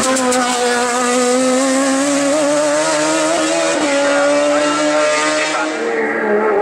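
Hill-climb race car engine running hard at high revs. Its pitch sags slightly at first and breaks briefly about four seconds in, as at a gear change, then dips and climbs again near the end.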